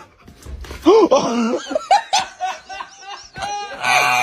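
A person laughing in a run of short repeated bursts, with a louder burst near the end.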